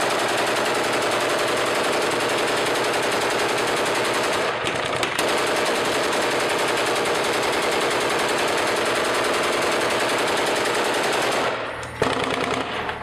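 Sustained automatic machine-gun fire, one long, rapid, unbroken stream with a brief falter about five seconds in. It fades out near the end, followed by a single sharp shot.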